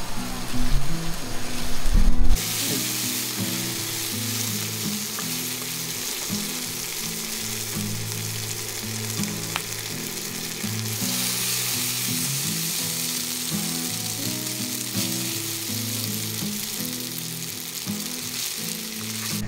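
Shrimp, shimeji mushrooms and sausage sizzling in oil in a small frying pan, the sizzle starting about two seconds in. Partway through, cooked spaghetti is tipped into the pan and tossed with tongs.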